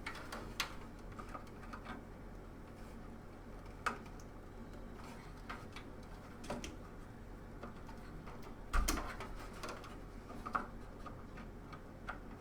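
Scattered small clicks and taps of plastic power-supply cable connectors being handled and pushed against the case and motherboard, with a louder knock about 9 seconds in.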